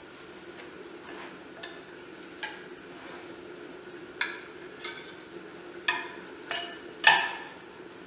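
Metal serving utensils, a spatula and a fork, clinking and scraping against ceramic dishes as steamed fish is lifted onto a plate. There are about seven separate sharp clinks, the loudest near the end.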